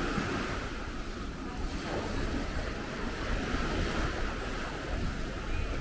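Sea waves washing onto a sandy beach, with wind rumbling on the microphone.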